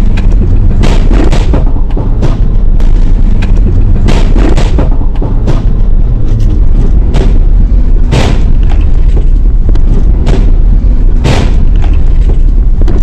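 Loud, distorted rumble of a police van being driven, overloading the in-cab recording, with irregular thumps about once a second.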